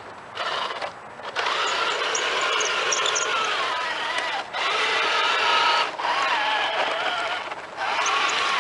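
Small radio-controlled Tiger tank driving, its electric drive motors whining steadily with the tracks running; the sound cuts out briefly several times as it stops and starts again.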